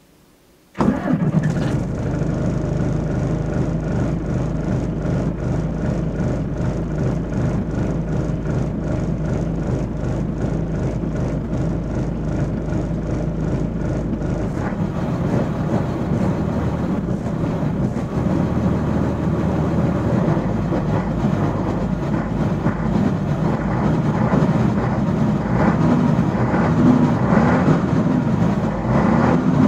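MAN 16.370 HOCL coach's diesel engine, heard inside the passenger cabin, comes in suddenly and loud about a second in, then runs steadily. In the last few seconds a pitched note rises and falls as the revs change.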